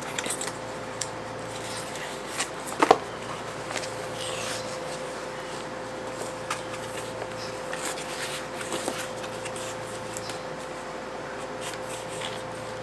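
Cardboard packaging being handled and pulled open by hand: scattered rubbing, rustling and small scrapes, with one sharp knock about three seconds in.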